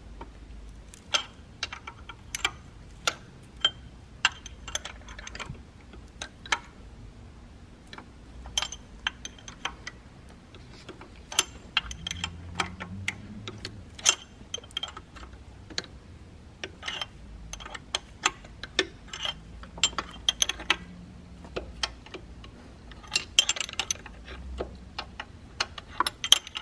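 Scattered sharp metallic clicks and clinks from hand tools on the BMW S54 vanos hub bolts as they are loosened a quarter to half a turn. A quick run of clicks comes near the end.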